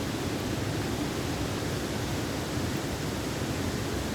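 Steady, even rush of water from the Marmore waterfall.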